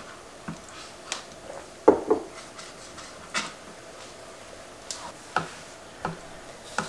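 Kitchen knife slicing raw abalone thin on a plastic cutting board, the blade knocking on the board in a string of irregular taps, the loudest about two seconds in.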